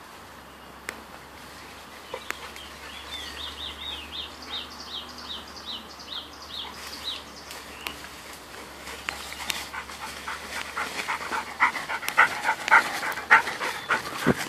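A dog panting in quick rhythmic breaths, growing louder over the last few seconds as it comes close. Earlier, a run of high, falling chirps repeats about three times a second.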